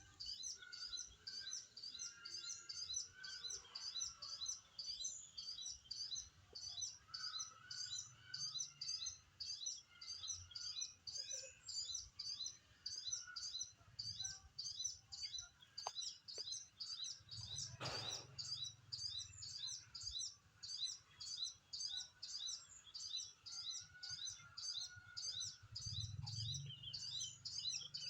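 Sogon bird calling without a break: a high, rapid string of short repeated notes, about three a second. Fainter lower bird calls sound underneath, with a single sharp knock about eighteen seconds in.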